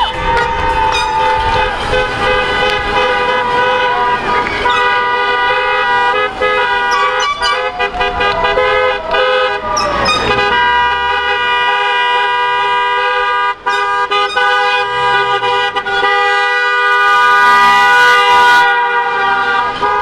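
Many car horns honking at once as a line of cars passes, several held for seconds and overlapping into a steady chord of tones. A brief rushing hiss joins near the end.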